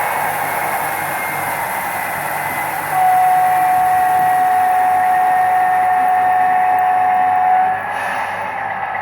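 Sound decoder playing the recorded sound of a PKP SU45 diesel locomotive: the engine running steadily, with one long horn note of about five seconds starting about three seconds in.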